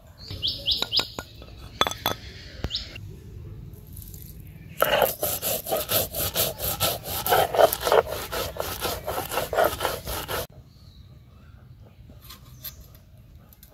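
Mustard seeds and cumin being ground on a sil-pata, the stone roller scraping back and forth over the flat grinding stone. A few lighter taps and scrapes come first, then a fast, steady run of loud grinding strokes from about five seconds in that stops near ten seconds.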